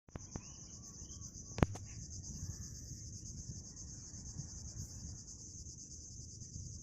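Insects trilling steadily, a high-pitched continuous buzz, over a low rumble. A single sharp click about a second and a half in is the loudest sound.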